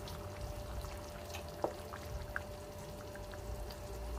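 Thick bolognese sauce bubbling in a frying pan as a wooden spoon stirs it, with scattered small pops and wet stirring sounds over a steady low hum.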